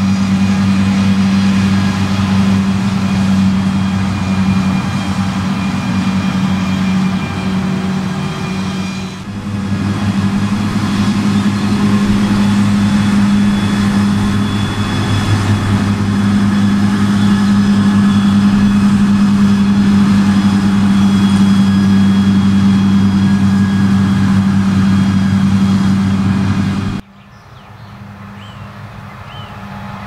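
Krone BiG M 420 self-propelled mower running steadily at working speed while mowing, a loud, even engine hum. About 27 seconds in, the sound drops suddenly to a much quieter, distant drone that slowly grows louder.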